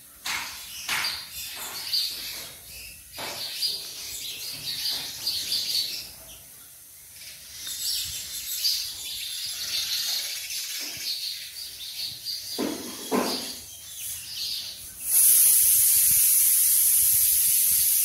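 House sparrows chirping, many short high chirps in quick runs. About three-quarters of the way through, a loud steady hiss starts and drowns them out.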